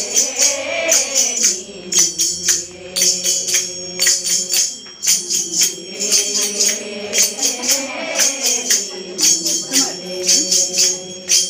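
A group of women singing a devotional song together, with jingling hand percussion keeping a steady beat.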